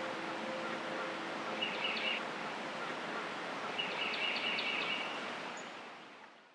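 Outdoor ambience: a steady hiss of background noise with short bird chirps, once about two seconds in and again around four seconds in, fading out at the end.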